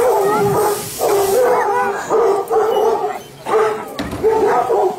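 A pack of hounds baying and whining together, many overlapping cries in bouts of about a second: the excited, impatient noise of hungry dogs waiting for their food. A hose spraying water hisses under the first second or so.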